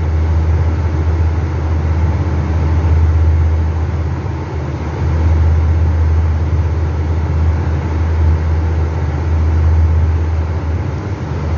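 Steady low drone of a Carrier 30GT air-cooled chiller running, a deep hum with a wash of fan and machinery noise over it, dipping briefly about four and a half seconds in.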